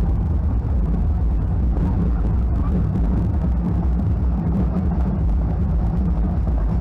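Din of a street procession: a loud, steady deep rumble with nothing distinct standing out.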